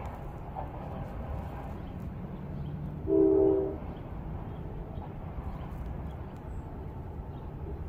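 Low rumble of a freight train rolling by, with one short blast of a diesel locomotive's multi-tone horn about three seconds in, the loudest sound.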